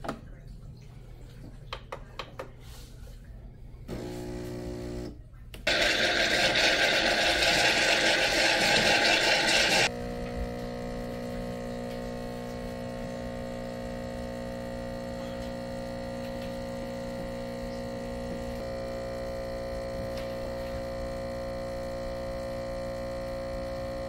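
Mr. Coffee Café Barista espresso machine running a brew cycle: a short hum about four seconds in, then a loud steam hiss for about four seconds as the automatic frother pushes milk into the mug. Then the 15-bar pump runs with a steady buzzing hum while espresso pours from the portafilter, and it stops right at the end.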